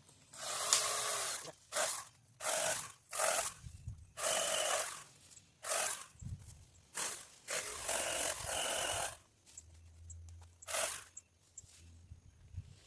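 Hand pole saw cutting a tree limb: a series of rasping strokes, some short and some about a second long, with brief pauses between them.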